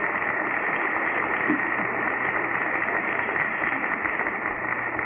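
Congregation applauding, a dense, even clatter heard through a muffled, narrow-band sermon recording, beginning to die down near the end.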